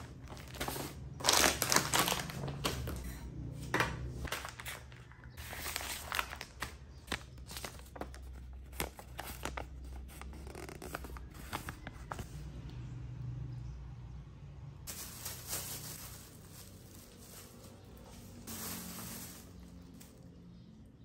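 Plastic and woven shopping bags and packaging rustling and crinkling as groceries are unpacked onto a countertop, with irregular light knocks of items being set down. It is loudest a couple of seconds in and thins out for a few seconds past the middle.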